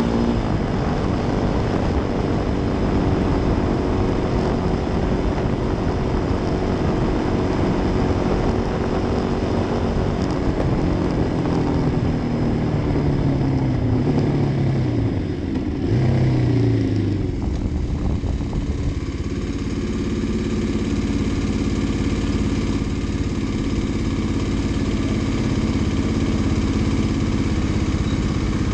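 Kawasaki D-Tracker's single-cylinder four-stroke engine running under way with wind rushing over the microphone, then dropping in pitch twice as the bike slows, and settling into a steady idle for the last ten seconds or so.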